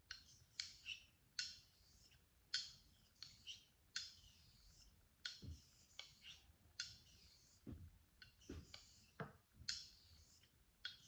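Faint clicks and short scrapes, roughly one a second, of a straight razor being stroked across a Nakayama Japanese natural whetstone in a thin water slurry.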